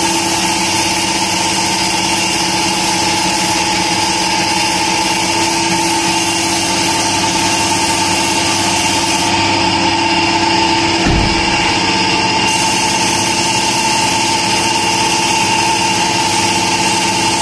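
Paint-spraying rig running steadily, an air compressor's hum with the hiss of a gravity-feed spray gun spraying car paint. There is a short low bump about eleven seconds in.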